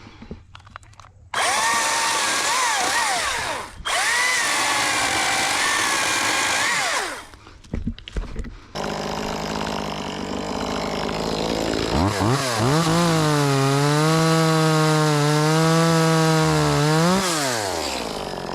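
Top-handle chainsaw cutting through wood in two runs that start and stop abruptly, its pitch wavering under load. After a short pause the saw runs steadily, then revs up about halfway through, holds high for several seconds and drops back near the end.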